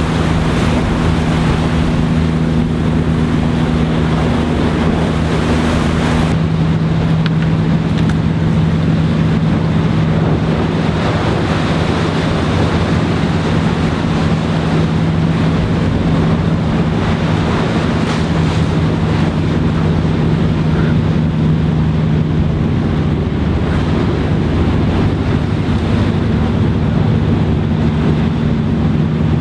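A boat's engine running at a steady pitch, with water washing and splashing. About six seconds in, the sound changes: one part of the engine hum and some of the hiss drop away.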